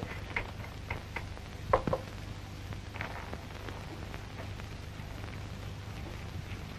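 A few light knocks and clicks of people moving about a room with a wooden floor, the loudest a sharp knock about two seconds in, over the steady hum and hiss of an old optical film soundtrack.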